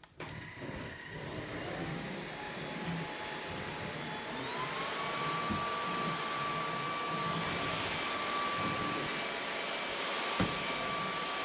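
Cordless stick vacuum cleaner with a motorised floor head running over a wooden floor. Its motor whine rises in pitch about a second in, rises again about four and a half seconds in, then holds steady. A single sharp knock comes near the end.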